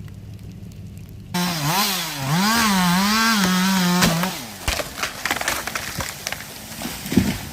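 Chainsaw revving and cutting through a downed tree, its engine pitch rising and falling for about three seconds before it stops, followed by scattered cracks and knocks. A low steady engine hum sits under the first second.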